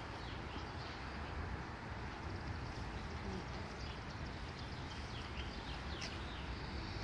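Steady outdoor background rumble of a street, with faint high bird chirps scattered through the middle.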